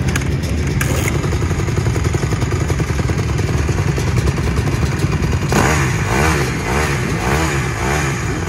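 Dirt bike engine idling, then revved in a run of short, evenly spaced throttle blips, about one every second or so, from a little past halfway.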